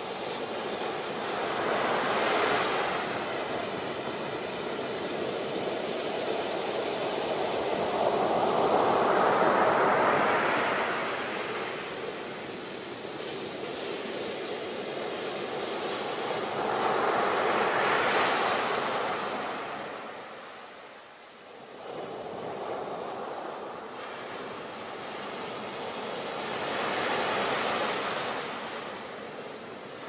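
Ocean surf: waves breaking and washing ashore, the noise swelling and fading about every eight seconds, with a brief lull about two-thirds of the way through.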